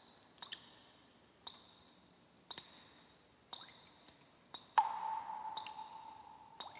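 Intro sound effect of sharp ticks about once a second, each with a short high ring. About halfway through, a lower ringing tone sounds and slowly fades.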